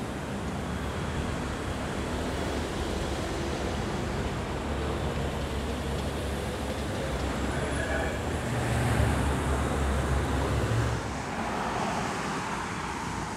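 Road traffic: cars and pickup trucks driving past, a steady engine and tyre rumble, louder for a couple of seconds around nine seconds in.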